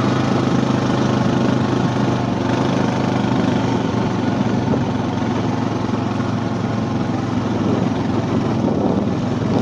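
Small engine of a farm vehicle running steadily at an even speed, with a constant drone.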